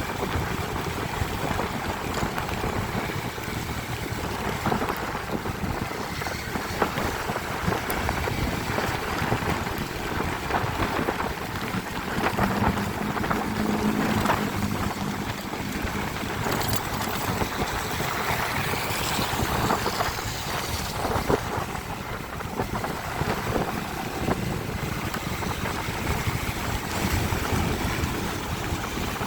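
Road traffic in the rain: a steady hiss of rain and tyres on wet asphalt, with wind on the microphone. A low steady hum rises out of it from about 12 to 15 seconds in.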